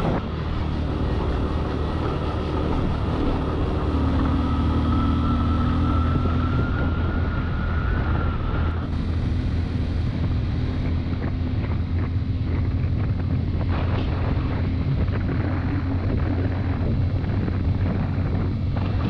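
Suzuki Gixxer SF motorcycle's single-cylinder engine running steadily while riding, with wind noise on the microphone. A thin high whine rises slightly in pitch over the first half, then drops out.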